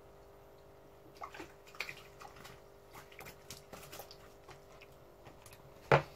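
Small aquarium fish net splashing and dripping as it is swept through the tank water and lifted out with a goldfish, in a run of short splashes and drips, then one sharp knock near the end. A steady hum runs underneath.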